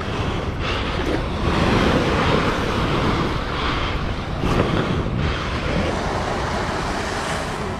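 A steady rushing noise, swelling slightly now and then.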